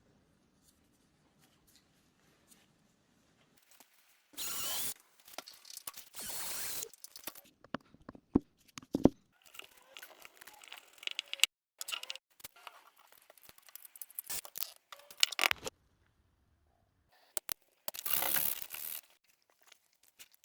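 Hand work on small metal gun parts: three short bursts of rasping, scraping noise about a second long each, with sharp clicks and knocks of metal in between.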